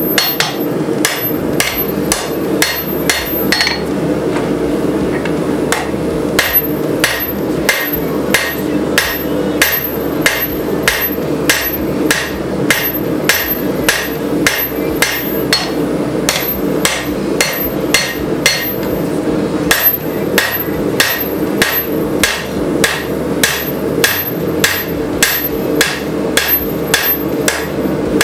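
Hand hammer striking red-hot rebar on an anvil, forging out a blade: a steady rhythm of blows, about two to three a second, with a pause of about two seconds near the start.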